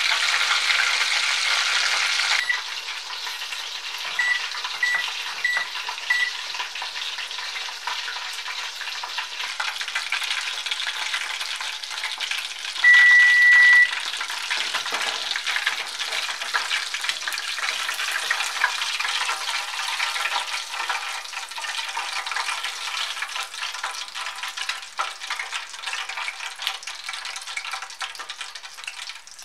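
Chicken katsu deep-frying in hot oil: a steady crackling sizzle that drops in level after about two seconds. Four short electronic beeps sound a few seconds in, and a single beep of about a second near the middle is the loudest sound.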